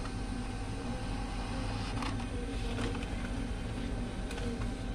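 Ricoh SP 210SU monochrome laser multifunction printer running as it prints a test page: a steady mechanical hum with a constant high whine, and a couple of faint clicks.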